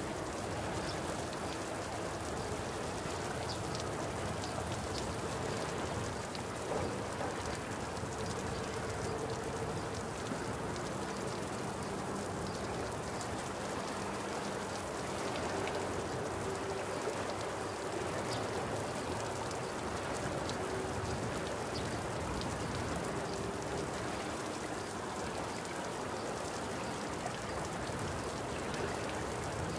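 A steady, even rain-like hiss with faint scattered ticks.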